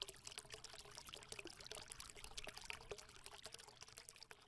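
Faint, dense crackling of many tiny clicks, with a faint steady hum underneath.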